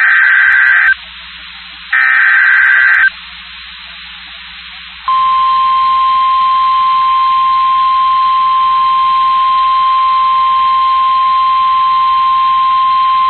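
Emergency Alert System severe thunderstorm warning: the last two of the three buzzy SAME header data bursts, about a second apart, then a hiss of radio static. About five seconds in, the NOAA Weather Radio warning alarm tone starts, a single steady high tone near 1050 Hz, and holds.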